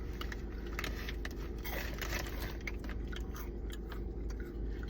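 Corn puff snacks being crunched and chewed: scattered crisp crunches over a steady low hum.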